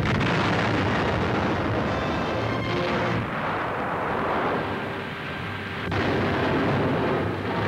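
Explosions in a continuous rumbling roar, with fresh blasts at the start and about six seconds in, over background music.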